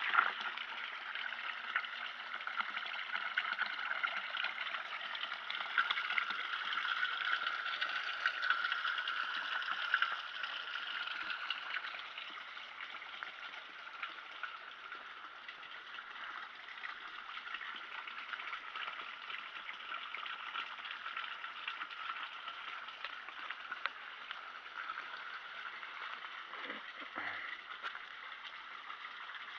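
Spring water running steadily from a spout. It is louder for the first ten seconds or so, then fainter, with a brief knock near the end.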